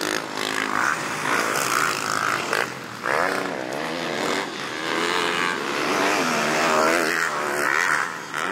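Motocross bike engine revving hard and dropping back several times, rising in pitch through each burst of throttle as the bike is ridden around a dirt track and over a jump.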